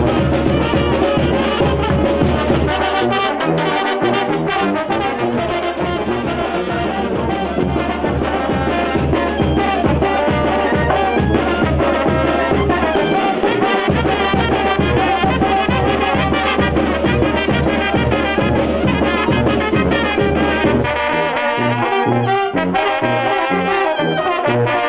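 Mexican banda brass band playing live: trumpets, trombones and clarinet over a sousaphone, with a steady pulsing beat in the bass. About 21 seconds in, the bass changes to separate bouncing notes.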